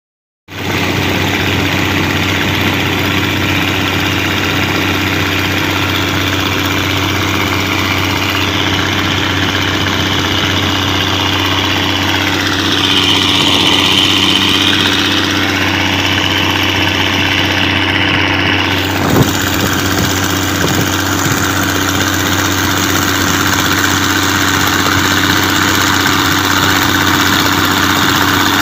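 Mitsubishi 6D16 inline-six diesel engine running steadily at constant speed. Partway through, a higher whining tone dips and rises for a few seconds, and there is a single sharp click a little later.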